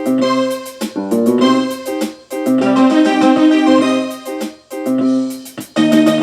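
Background music led by an electric-piano-style keyboard playing held chords that change about every second, with short breaks between phrases.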